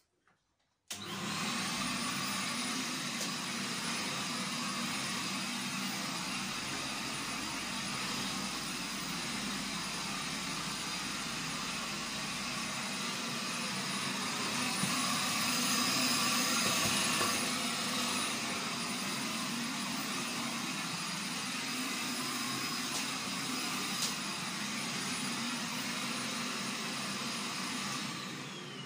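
Vacuum cleaner running steadily with a faint high whine. It starts about a second in and tails off near the end.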